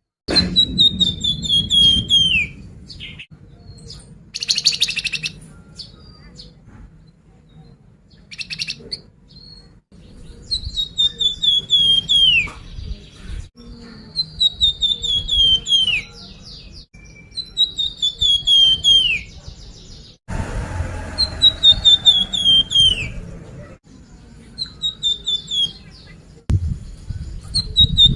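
A flamboyan songbird singing the same phrase again and again: a quick run of clear whistled notes stepping down in pitch and ending in a downward slide, repeated about every three seconds. Two short buzzy rattles come in early on, and there is a low rumble underneath. This is a lure song of the kind used to get caged flamboyan birds to answer and sing.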